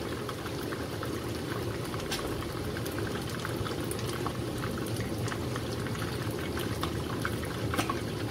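Fish pieces frying in hot oil in a pan: a steady bubbling with faint small crackles.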